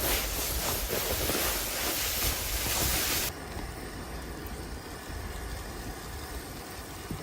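Wind noise: a loud, even hiss for about three seconds that cuts off suddenly, then a lower steady rumble of wind buffeting the microphone.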